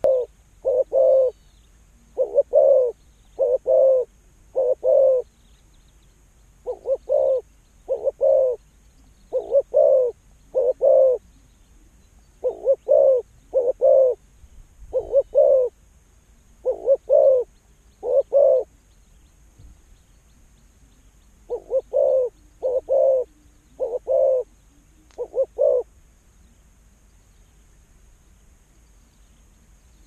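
Spotted dove cooing: low calls in short groups of two or three notes, repeated over and over, stopping a few seconds before the end.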